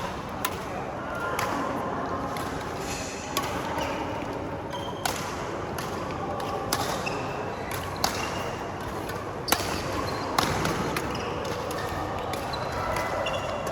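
Badminton rally: sharp racket-on-shuttlecock hits about every second or so, with brief squeaks of court shoes between them.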